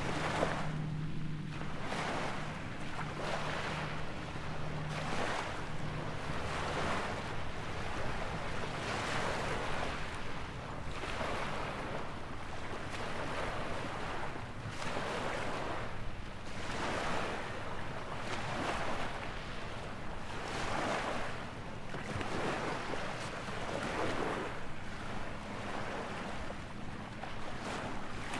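Shoreline sound of small waves washing and wind, with a soft swish repeating about once a second. A low, steady motorboat engine hum fades out in the first five seconds.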